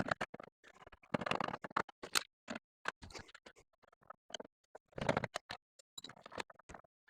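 Irregular clicks and two short bouts of rattling clatter, about a second in and about five seconds in, from small metal parts being handled while an AV receiver's sheet-metal chassis is taken apart and its screws removed.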